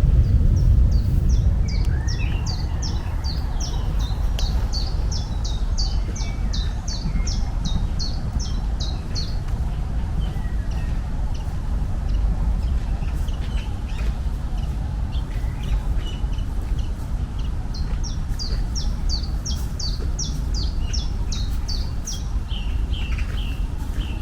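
A songbird singing a fast series of repeated high notes, about three a second, in two bouts, over a steady low rumble.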